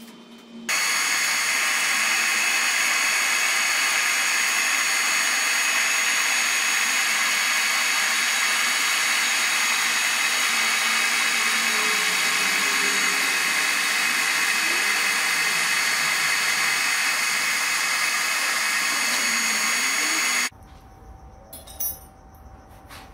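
Metal lathe running steadily with a high whine while skimming a steel shaft a couple of thousandths of an inch down to size for a light press fit. It starts abruptly just under a second in and stops abruptly after about twenty seconds, with a small knock shortly after.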